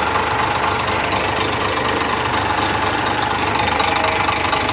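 Dump truck's diesel engine idling steadily; the truck is being checked for low power and engine knocking.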